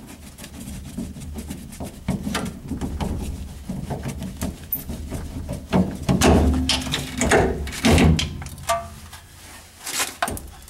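Socket wrench ratcheting and clicking as bolts are loosened on a car's rear suspension hub, with metal clinks of tool on bolt. Heavier metal knocks and clanks come a little past halfway through, over a faint low hum.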